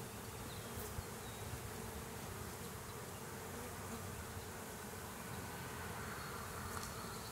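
Honeybees buzzing steadily in a low, even hum over an open hive full of bees.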